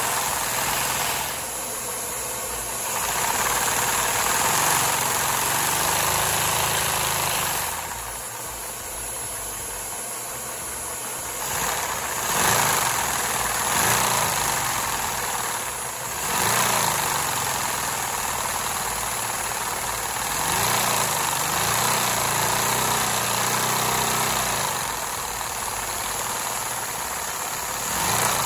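A four-cylinder Lego vacuum engine in a VR layout, running on suction with a continuous mechanical clatter over the rush of drawn air. It gets quieter about a second in and again from about eight to eleven seconds, then picks back up, as its speed changes.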